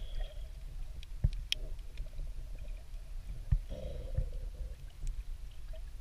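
Muffled underwater noise picked up by a submerged camera: a steady low rumble with two dull knocks, about a second in and midway, and faint gurgles.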